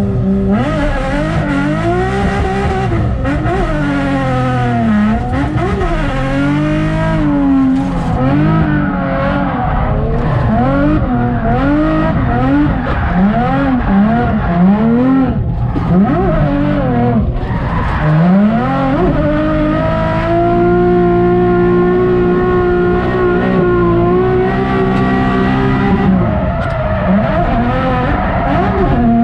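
Nissan 350Z's V6 engine revving up and down over and over as the car is driven sideways, drifting, with tyre squeal in the first several seconds; from about twenty seconds in the revs hold steadier and higher.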